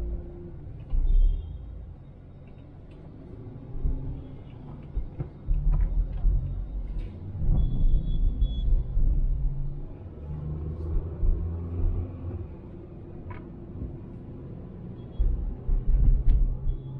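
Low road and engine rumble inside a moving car, swelling into louder low surges every few seconds, with a few faint short high tones.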